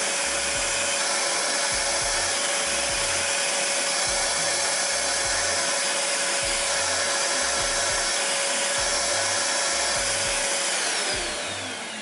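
Parkside PNTS 1500 D5 wet-and-dry workshop vacuum running steadily with an even whine over its airflow noise, and no knocking from its filter-cleaning function. Near the end it is switched off and the whine falls as the motor spins down.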